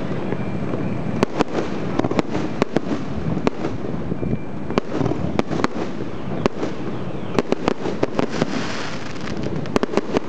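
Fireworks display: a dense run of sharp shell bursts at irregular intervals, some in quick clusters, over a steady background rumble. A crackling hiss builds near the end.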